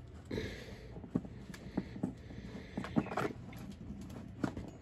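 Irregular light taps, clicks and rustles of insulated hook-up wire being handled and pushed through holes in a cardboard box.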